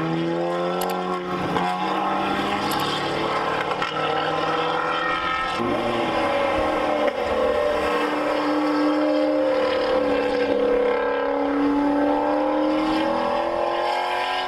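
Race car engines running hard on a road course, the note shifting in pitch through a corner; from about six seconds in, a Chevrolet Corvette race car's V8 holds a steady high-revving note as it passes and pulls away.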